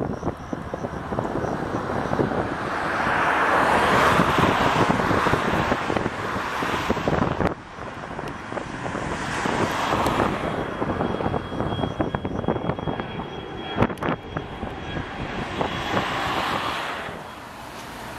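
Gulfstream G550 business jet's turbofans at takeoff power as it lifts off and climbs out, a jet noise that swells and fades three times, with abrupt breaks between passes.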